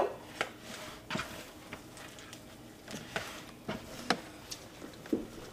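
Oiled hands punching down and kneading risen challah dough in a bowl, pressing out the air bubbles after its first rise. It makes quiet, irregular squelches and soft slaps, about one or two a second.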